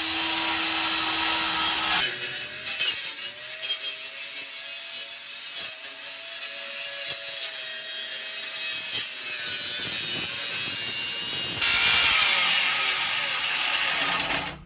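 Handheld electric circular saw running and cutting through a window's metal nailing fin along the sill, a steady motor whine under the harsh noise of the blade. It grows louder and harsher a few seconds before the end, then cuts off suddenly.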